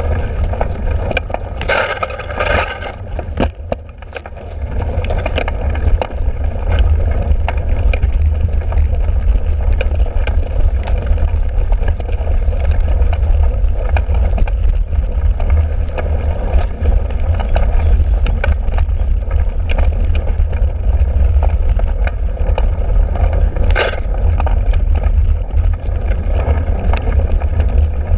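Steady low rumble of wind buffeting and rough ground on a bike-mounted camera's microphone as a cyclocross bike is ridden over muddy grass, with frequent small knocks and rattles from the bike.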